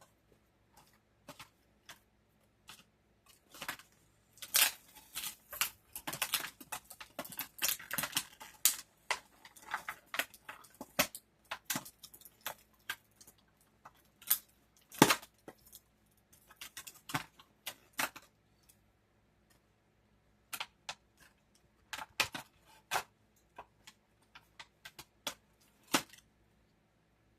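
Small hard plastic parts being handled: quick irregular clicks and taps, thick for several seconds, then scattered single clicks.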